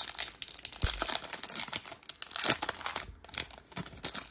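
Plastic wrapper of a pack of baseball trading cards crinkling and tearing as it is torn open by hand, a dense run of irregular crackles.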